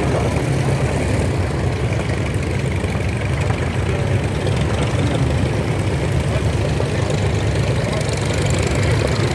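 Piston engine of a vintage biplane idling at low revs, a steady low rumble with its propeller turning.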